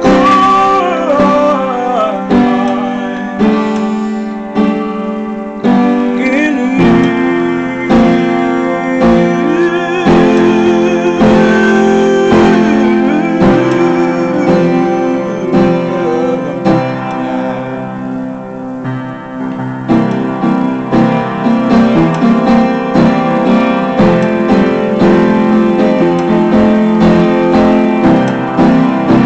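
Piano playing a slow song accompaniment in sustained chords and broken notes, with wordless singing gliding over it at times in the first half.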